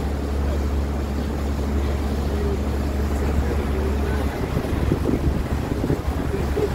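Tour boat's engine running steadily as the boat cruises, a constant low hum, with the rush of wind and water over it.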